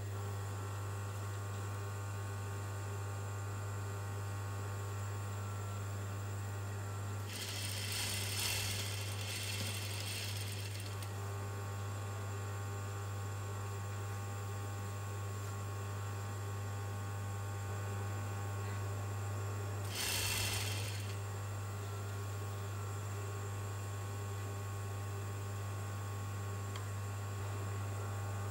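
Juki industrial sewing machine's motor humming steadily, with two runs of stitching: a longer one about eight seconds in and a short one about twenty seconds in.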